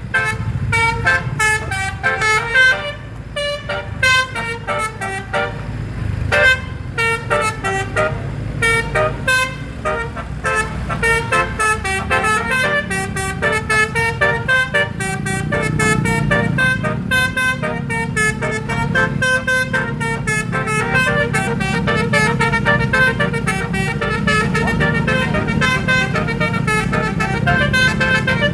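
Indonesian bus's basuri telolet horn, a multi-trumpet air horn, playing a fast melody of short, rapidly changing notes. The bus engine runs underneath and gets louder from about halfway through.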